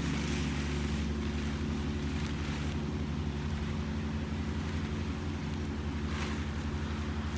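A steady low motor drone with several constant tones, with brief rustles of tent fabric being handled over it.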